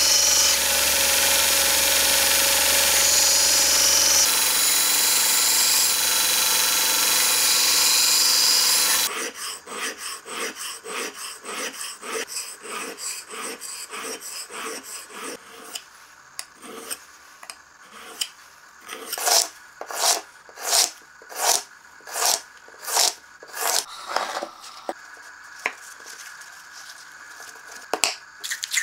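Belt grinder grinding the steel of a chisel made from an old file, running steadily and stopping abruptly about nine seconds in. After that, the steel blade is honed by hand on a sharpening stone: rhythmic scraping strokes, about two a second, louder for a few seconds past the middle.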